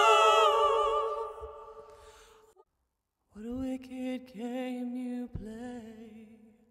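Female singer holding a long note with vibrato that fades away about two and a half seconds in. After a brief silence she sings softer, lower phrases with gentle vibrato.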